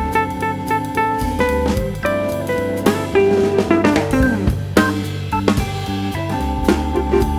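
Background music: a jazzy instrumental with guitar and drums at a steady beat.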